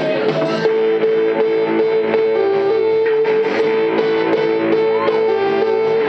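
Live pop band playing a song, loud, with sustained chords that change every second or so.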